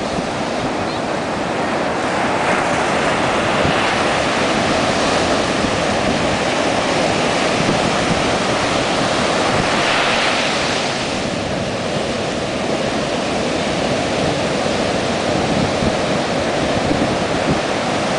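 Storm surf breaking and washing in: a steady rush of heavy waves, with a louder surge about ten seconds in. Wind buffets the microphone underneath.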